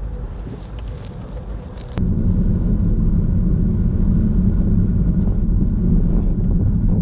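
Inside the cabin of a first-generation Honda CR-V on the move: a steady low rumble of engine and road noise, which jumps suddenly louder about two seconds in.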